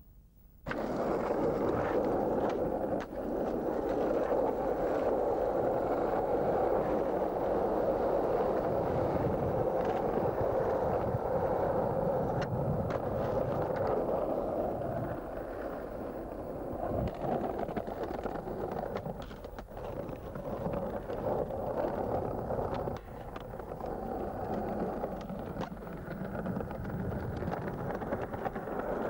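Skateboard wheels rolling over road and paving, a steady rolling noise, with several sharp clacks of the board hitting the ground.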